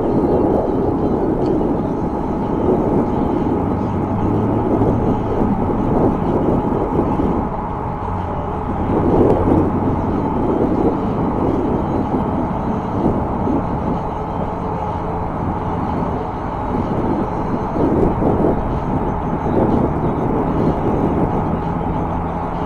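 Steady rushing noise of an e-bike riding along a paved path, with traffic running on the road alongside.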